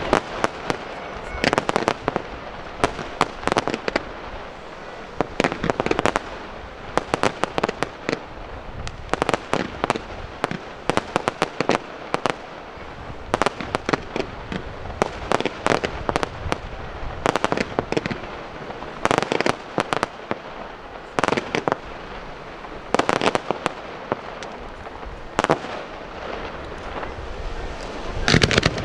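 Fireworks display: ground fountains and small aerial shells giving many sharp pops and bangs, irregular and often in quick clusters, over a steady hiss.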